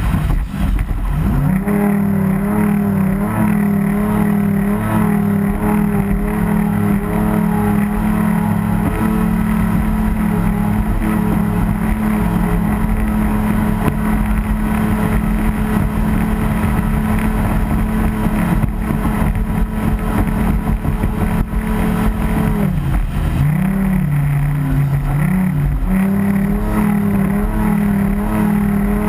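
Race boat's engine running hard at a steady high pitch, heard from the onboard camera. The pitch dips briefly about a second in, then drops lower and wavers for a few seconds three-quarters of the way through before picking back up.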